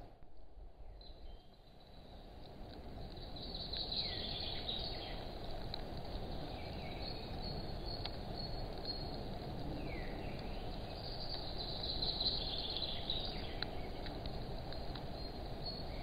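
Open-air mountain ambience. Small birds chirp and trill, with a few short falling whistles, over a steady low background rush. The sound fades up over the first couple of seconds.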